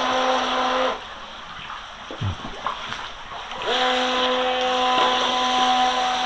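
Small electric water-jet drive of an RC jet boat whining at a steady pitch, with water rushing around the hull. It cuts out about a second in, leaving fainter water sounds, and spins quickly back up to speed nearly four seconds in.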